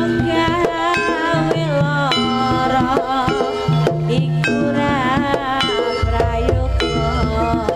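Javanese jaranan music, gamelan with hand drumming and a wavering, ornamented melody line, played loud through a sound system; a deep low note sounds for about a second near the end.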